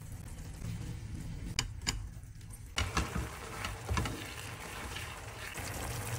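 Spaghetti being stirred and tossed through a creamy sauce in a nonstick pan, with a soft wet sizzle and a few light clicks of the utensil against the pan.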